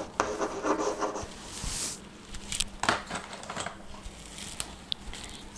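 Chalk writing on a blackboard: short scratching strokes and several sharp taps of the chalk against the board.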